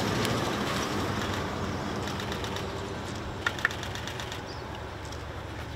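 A motor vehicle's engine running on the road close by, fading as it moves away. Two short, sharp sounds come close together about three and a half seconds in.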